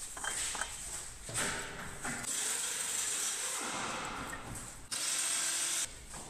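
Ratchet wrench working: scattered clicks, then a long spell of fast rasping about two seconds in and a shorter one about five seconds in.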